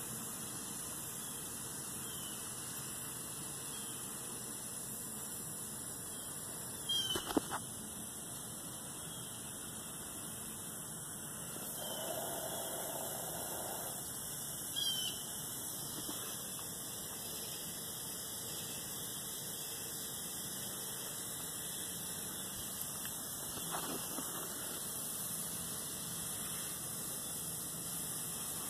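Steady background hiss, with a few brief high chirps about a quarter of the way in and again about halfway.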